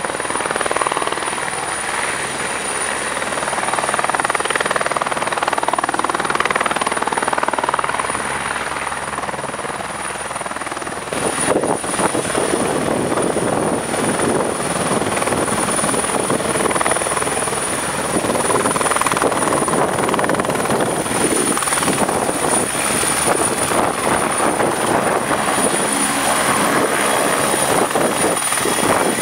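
Eurocopter AS-555 Fennec twin-turbine helicopter hovering low during takeoff. Its rotor beats steadily under a thin, high turbine whine. About eleven seconds in, the rotor noise turns louder and more pulsing.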